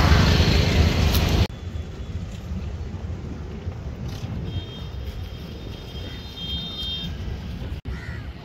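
Fishing trawlers' diesel engines running as the boats head out to sea, a steady low hum, loud for about the first second and a half and then fainter after a sudden drop.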